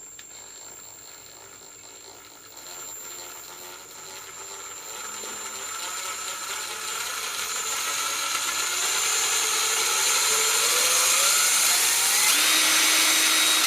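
Ryobi 18-volt ONE+ cordless impact driver motor spinning free on its variable-speed trigger, starting slow and gradually speeding up, its whine rising in pitch and loudness. It reaches top speed near the end and holds there briefly before stopping.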